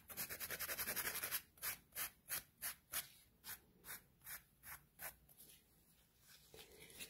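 Medium-grit hand nail file rasping along the side of a cured 3D-gel nail on a tip. It starts with a quick run of short strokes, then goes to slower separate strokes about three a second, and stops about five seconds in.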